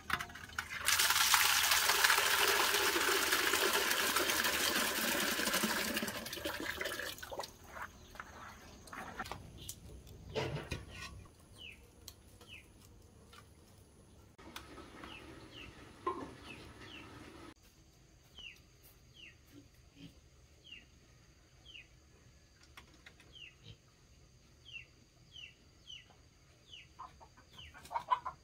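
Water gushing loudly for about six seconds, then stopping. After that, birds peep in a long series of short, high, falling chirps.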